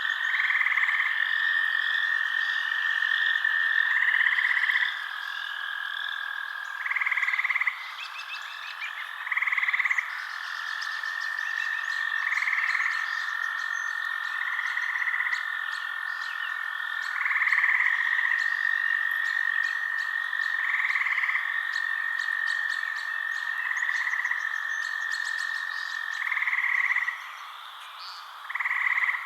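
Frogs calling in a night chorus: a steady high trill, with a louder call every two to three seconds and faint rapid chirping above.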